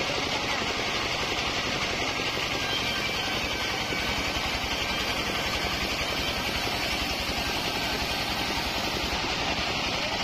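Single-cylinder diesel engine driving a portable bandsaw sawmill, running steadily with a fast, even throb, the running band blade's hiss over it.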